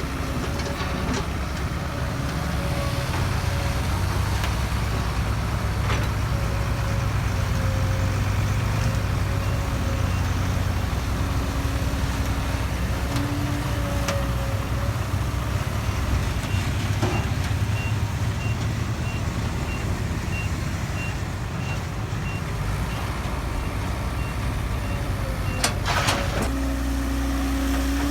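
Heavy diesel construction machinery engine running steadily, with a backup alarm beeping at an even pace through much of the second half. A few sharp knocks, the loudest a cluster near the end, where the engine note changes.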